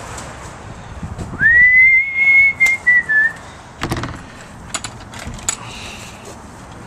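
A single long high whistled note that swoops up, holds steady for nearly two seconds with a slight dip at the end, then stops. A knock and a few light clicks follow.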